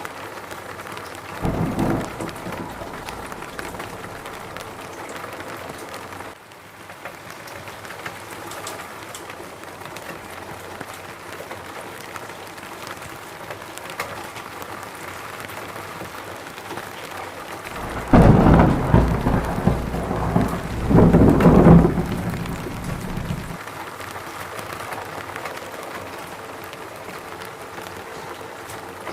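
Steady rain falling, with thunder: a short low rumble about a second and a half in, and a longer, louder rumble in two swells about two-thirds of the way through.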